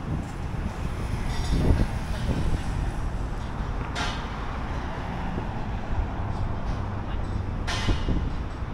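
City street traffic: a steady low rumble of passing vehicles, with two short hisses about four and eight seconds in.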